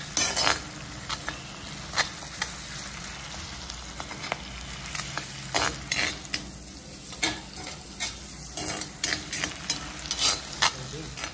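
Sliced onions sizzling steadily in hot oil in a kadai as they are sautéed, with a perforated steel ladle stirring them and scraping and clinking against the pan at irregular moments.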